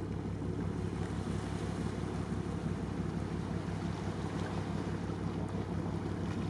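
Wind buffeting the camera microphone: a steady low rumble with no pauses.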